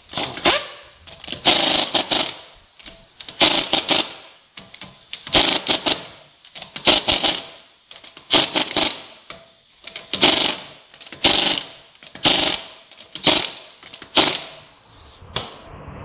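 Pneumatic impact wrench hammering on a front wheel's lug nuts in short bursts, about one a second, ending shortly before the end.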